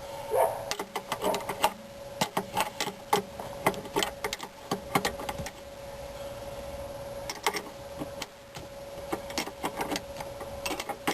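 Wrench clicking as it turns the top nut onto a car's rear shock absorber shaft, in quick irregular runs of clicks that ease off for a few seconds in the middle, over a faint steady hum.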